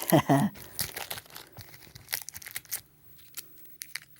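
Candy wrapper crinkling and tearing as it is worked open, a run of quick sharp crackles that thin out toward the end. A brief voiced sound at the very start.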